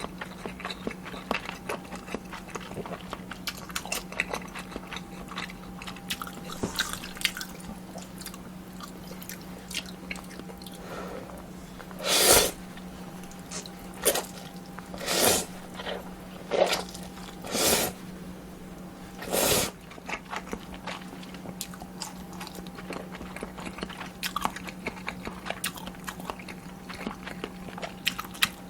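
Close-miked eating of kimchi ramen and dumplings: steady chewing with many small wet clicks, and a run of about six loud slurps of noodles or broth in the middle. A steady low hum runs underneath.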